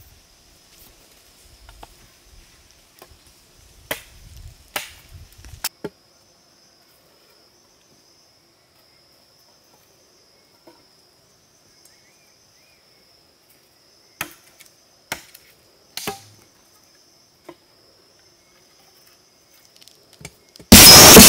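Two short groups of sharp chopping knocks, a machete striking a wooden stake, over a faint steady buzz of insects. Near the very end a loud rushing noise cuts in suddenly.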